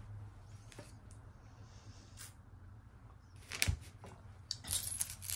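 Jewelry being handled: a few light clicks of beads and chain, with a sharper cluster a little over halfway through and several more clicks near the end.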